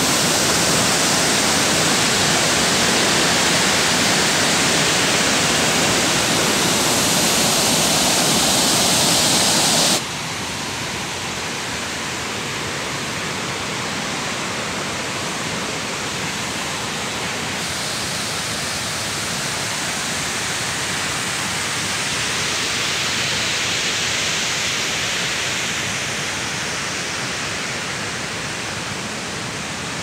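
Steady rushing of water from a waterfall. About ten seconds in it drops suddenly in loudness and continues as a softer, more distant rush.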